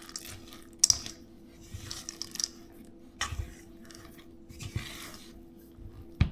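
Silicone spatula folding chocolate chips into thick cookie dough in a bowl: irregular scraping and soft knocks, with a sharp knock about a second in and another near the end.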